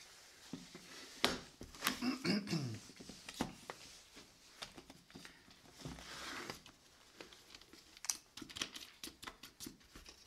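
Handling noise of a small wooden phone clamp: wood knocking and scraping as a phone is pushed into it and a wing nut is turned, with scattered clicks and taps and a run of quick small clicks near the end. A short falling squeak comes about two seconds in.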